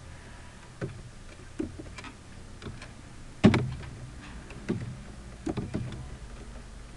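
Computer keyboard keys being pressed: about eight irregular clacks, the loudest about three and a half seconds in, over a low steady hum.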